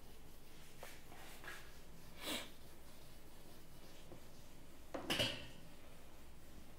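A few faint, short scratching strokes of writing, the loudest two about two and five seconds in.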